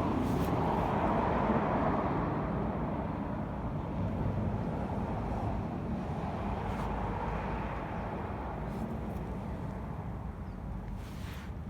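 Steady outdoor rumble, like passing road traffic, swelling near the start and again about halfway through, then slowly fading.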